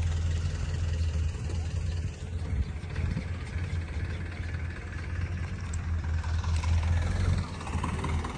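Diesel jeepney engine idling, a steady low hum.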